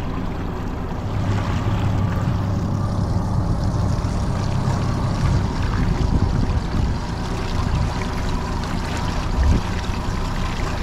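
Honda 30 hp four-stroke outboard motor running steadily at slow trolling speed, with water washing along the boat's hull. A single low thump comes about nine and a half seconds in.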